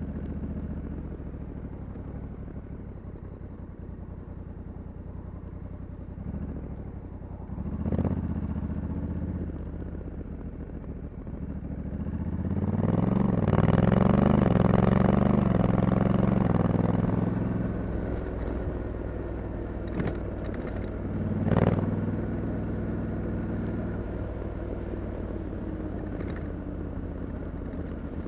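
Honda Africa Twin 1100 DCT's parallel-twin engine on its stock exhaust, heard from the rider's seat. It runs low and steady with a short rev blip about eight seconds in. From about twelve seconds it gets louder under acceleration, its pitch climbing and dropping back several times, then settles again, with another short blip a little after twenty-one seconds.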